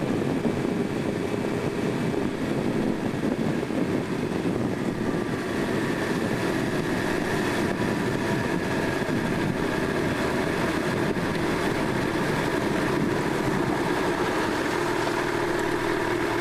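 Motorcycle riding heard from a camcorder mounted on the handlebars: a steady engine drone mixed with wind rushing over the microphone.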